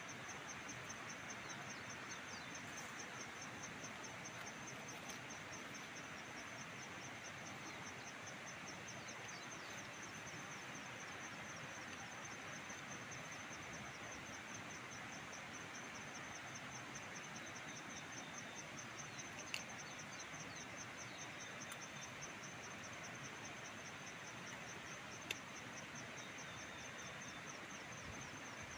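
Farmland ambience dominated by a high, steady insect trill that pulses rapidly and never stops, over a constant outdoor hiss. A few faint bird chirps come and go, and two sharp clicks sound in the second half.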